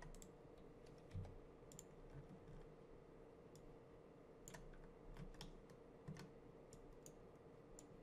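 Faint, irregular clicks of a computer mouse and keyboard over a low steady hum.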